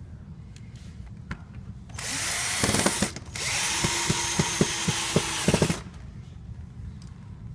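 Power drill driving screws in two runs, about a second each way: a short run about two seconds in, a brief pause, then a longer run of about two and a half seconds with a string of sharp clicks through it.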